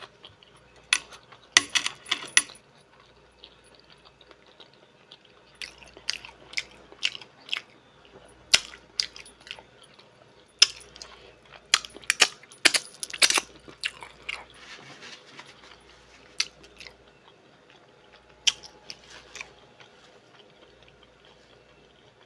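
Mussel and clam shells clicking and clinking as they are handled and eaten close to the microphone, in irregular sharp clicks that come in clusters, with some eating noise between.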